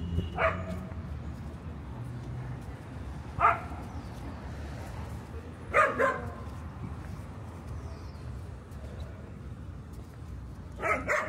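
A dog barking in short, separate barks: one about half a second in, another a few seconds later, a quick pair midway and a rapid run of several near the end. A low, steady hum of street traffic runs underneath.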